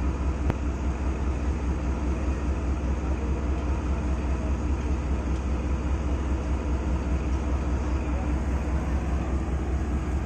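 Steady, low diesel drone from a train standing at the station platform.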